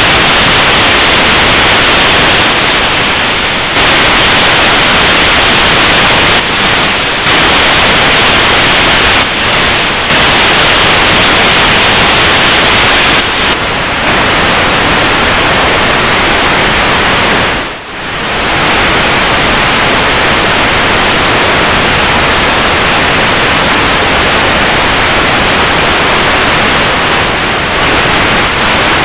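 Loud steady rushing noise of wind buffeting the microphone on an open boat at sea, with a brief dip about eighteen seconds in.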